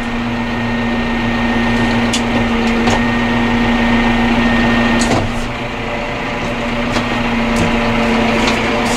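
Massey Ferguson 5711's four-cylinder diesel engine running at low revs, around 900 rpm, heard from inside the tractor cab as a steady hum with one constant tone. A few light clicks come over it, and the sound dips briefly about halfway through.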